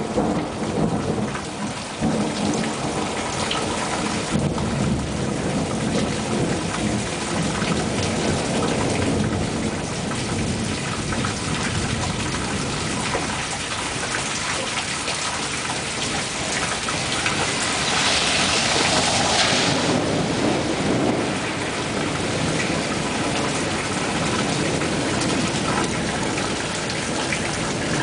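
Heavy rain pouring onto pavement and lawn in a thunderstorm, with thunder rumbling low underneath. The rain's hiss swells for a couple of seconds about two-thirds of the way through.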